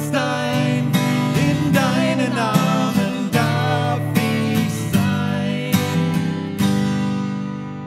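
A man and a woman singing a worship song together to a strummed acoustic guitar. About six and a half seconds in the last chord is struck and left ringing, fading out as the song ends.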